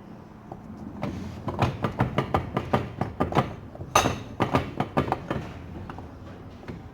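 A quick, uneven run of sharp metal knocks and clanks, several a second, the loudest about four seconds in, as a starter motor's metal parts are worked on by hand.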